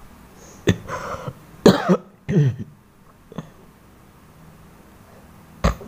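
A person coughing and clearing their throat several times in quick succession over the first few seconds, followed by one more short, sharp sound near the end.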